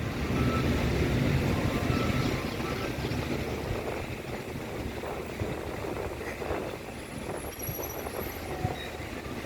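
Steady low rumble of a passing vehicle, loudest in the first few seconds and easing off, with a faint high chirp about three-quarters of the way through.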